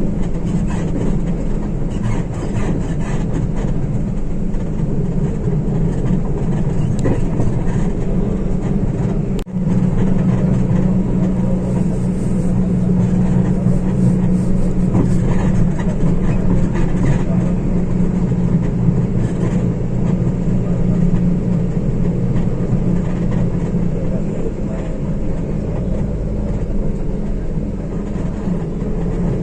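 An engine running steadily at an even pitch, with a short break about nine and a half seconds in.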